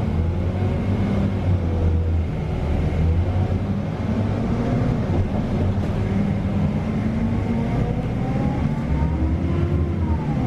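Diesel engine and drivetrain of a Scania K320UA articulated city bus heard from inside the passenger cabin while driving: a steady low drone with road noise. A whine rises slowly in pitch over the second half and drops near the end.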